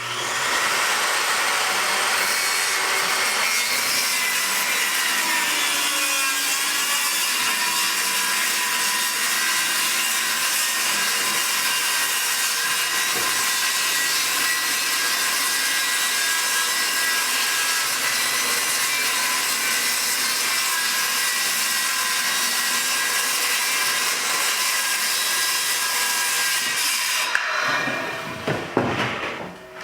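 Corded circular saw running steadily as it cuts through a sheet of OSB (oriented strand board), stopping near the end, followed by a few knocks.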